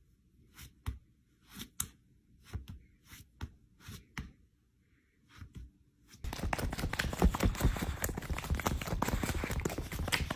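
Faint, scattered soft rustles and clicks. About six seconds in, a dense, louder crackling rustle full of sharp clicks starts close to the microphone.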